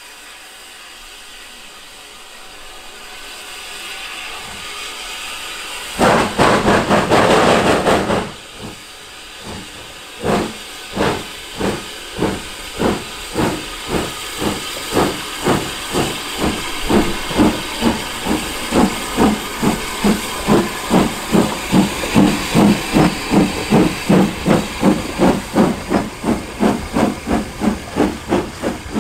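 Steam locomotive pulling away: a hiss of steam grows and a loud blast of steam comes about six seconds in, then the exhaust chuffs begin and quicken steadily from about one to about two a second as it gathers speed.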